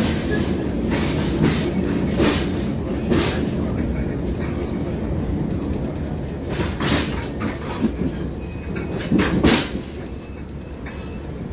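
Passenger train heard from inside the carriage while running: a steady low rumble with irregular sharp wheel clacks and knocks over the rails, a pair of loud ones near the end, after which the rumble eases a little.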